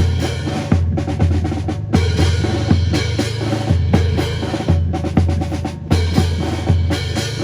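Music with a steady drum-kit beat of bass drum and snare over a pulsing bass line.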